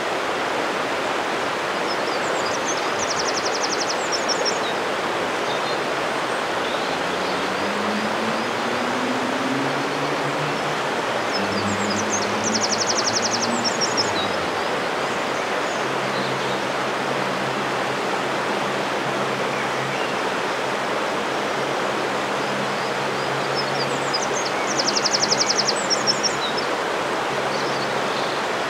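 Steady rushing of river water, with a small songbird singing a short trilled phrase three times, roughly ten seconds apart.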